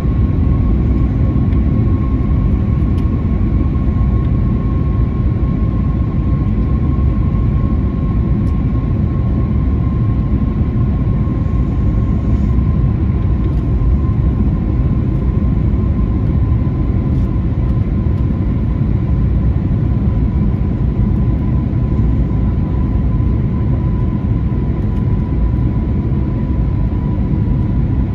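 Cabin noise aboard an Airbus A321neo with CFM LEAP-1A engines: a steady low rumble of engines and airflow with a thin engine whine that sinks slightly in pitch.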